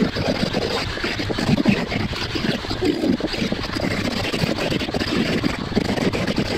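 Bitec SGM 906 V-OS electric die grinder with a wide cutting disc, cutting away excess fiberglass from a moulded part. The motor runs under load, and the cutting noise rises and falls unevenly as the disc bites into the material.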